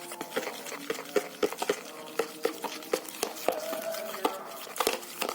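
A utensil stirring a thick, sticky mix of clear glue, liquid soap and pink colouring in a container, with quick irregular clicks and scrapes. This is the slime base being mixed until even, before the activator goes in. Faint distant chanting runs underneath.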